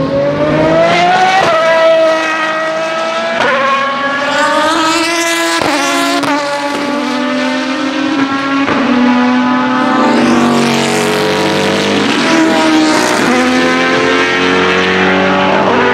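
Open-exhaust V12 racing car engines, among them the 2012 Aston Martin V12 Vantage GT3, accelerating hard out of a corner: the loud engine note climbs and drops back at each upshift, several times over. In the second half more than one car is heard at once, their notes overlapping.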